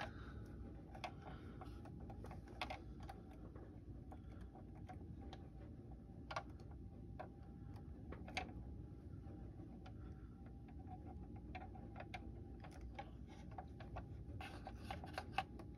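Light, irregular clicks and taps of small plastic model-kit parts and tools being handled on a workbench, busier near the end, over a faint steady hum.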